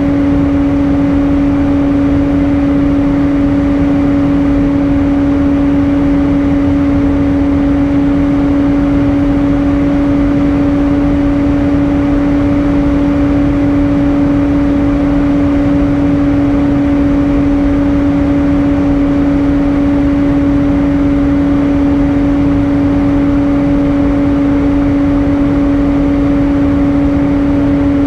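Airbus A320 cabin noise in flight: a steady, loud rush of engine and airflow noise with a constant droning hum tone running through it.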